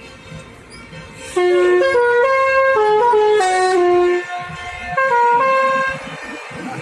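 Bus telolet horn, a Basuri multi-tone horn, playing a tune of stepped held notes. A loud phrase starts about a second and a half in, and a shorter one follows about five seconds in.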